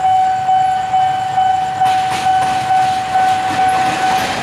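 Level crossing warning bell ringing steadily, pulsing about twice a second, as a KAI CC 206 diesel-electric locomotive approaches. From about two seconds in, the rumble of the locomotive and its train passing the crossing grows under the bell.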